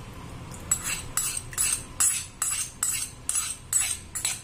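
A metal spoon scraping and clinking against metal pans, in short strokes about two to three a second, as melted butter is scraped out and poured into the saucepan of egg and milk mix.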